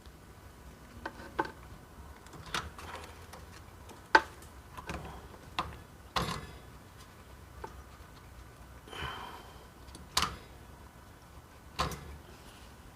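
Scattered sharp clicks and knocks of handling, with a short rustle about 9 seconds in, as the DF64 grinder's power cord is plugged in and the grinder set up.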